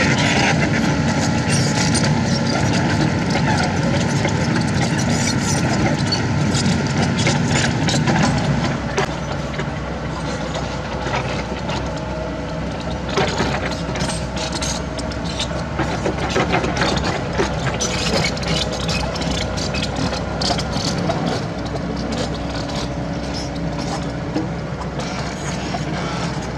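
Kobelco SK75 excavator's diesel engine running steadily, louder for the first eight seconds and then settling a little lower. Frequent short knocks and clatters sound over it from about nine seconds on.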